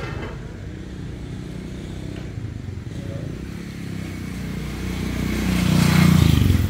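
Motorbike engine running steadily nearby, growing louder near the end.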